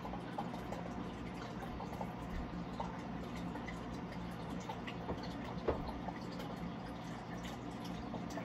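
Water trickling and dripping over a steady low hum, with many small scattered clicks and one sharper click about five and a half seconds in.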